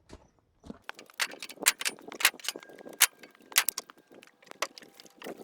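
A string of sharp, irregular clicks and knocks, several a second, starting about a second in.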